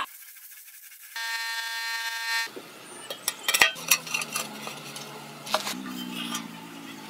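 Square steel-tube legs being fitted into the sockets of a steel barbecue body made from a gas cylinder: sharp metal clicks and knocks, loudest about three to four seconds in. Before that, a steady pitched tone with many overtones sounds for about a second and a half and stops abruptly.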